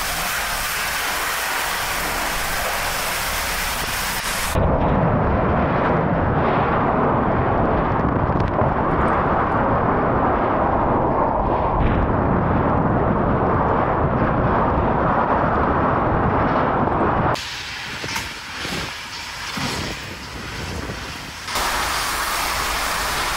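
Storm wind rushing over a phone microphone. A steady hiss gives way about five seconds in to a louder, deeper buffeting rush, which drops to a quieter, gusting noise about three-quarters of the way through before the hiss returns.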